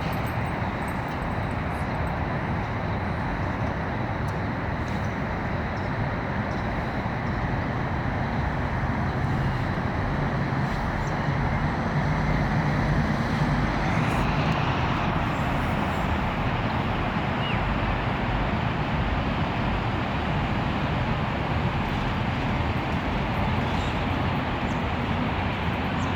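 Steady urban street traffic noise, growing a little louder about halfway through.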